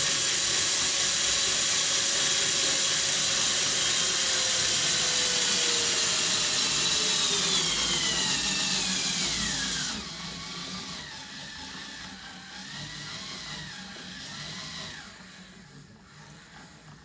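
Small DC motor driving a 3D-printed PLA herringbone-gear reduction gearbox, a loud whirring whine whose pitch falls steadily as it slows under a rising load. About ten seconds in it turns much quieter, with a lower wavering whine that fades out near the end.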